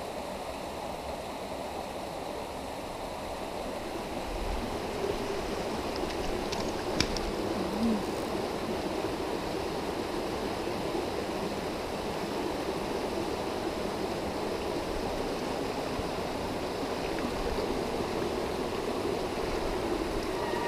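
Small mountain stream running over rocks into a pool: a steady rush of water that grows a little louder after about four seconds. A single sharp click sounds about a third of the way in.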